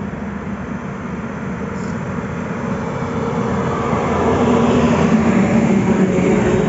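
Hero motorcycle engine drawing steadily closer and getting louder, over the continuous rumble of highway traffic that includes a loaded truck.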